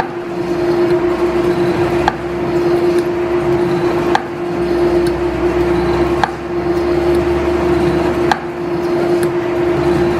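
Belt-driven 1897 Whitcomb eight-foot metal planer running, its high-speed-steel tool taking cuts. A sharp clack at each stroke reversal, about every two seconds, sounds over a steady drone.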